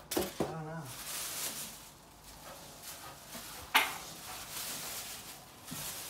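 Rustling handling noise as things are moved about, with one sharp knock a little under four seconds in and a lighter one near the end.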